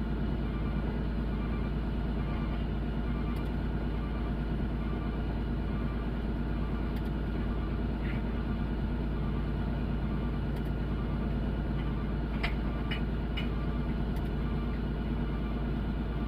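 Komatsu excavator's diesel engine running steadily, with three short sharp clicks about twelve and a half seconds in.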